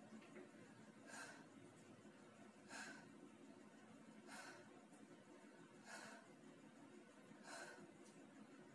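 A person breathing out sharply and faintly, five short breaths evenly spaced about one every second and a half, in time with repeated arm curls during a strength exercise.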